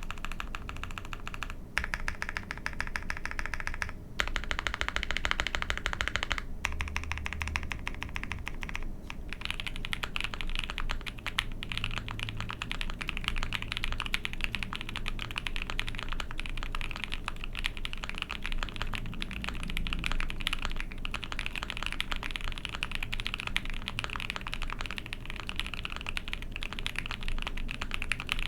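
Fast, continuous typing on an Ai03 Vega mechanical keyboard with a POM plate, Banana Split switches with JX stems (lubed with Krytox 205g0 and filmed) and GMK keycaps. There are a couple of brief pauses in the first few seconds.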